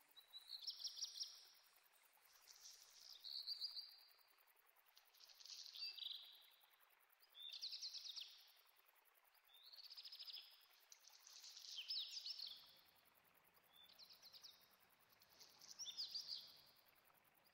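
A small songbird singing the same short, high phrase over and over, about once every two seconds: each time a quick run of notes running into a brief buzzy note.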